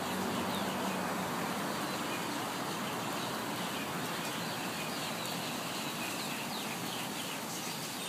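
A huge flock of starlings calling overhead: a dense, steady wash of many birds at once, with a few short high chirps standing out.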